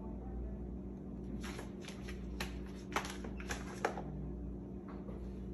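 A cat pawing at and flipping up its rubber feeding mat: a run of light clicks and scrapes in the middle, over a steady low hum.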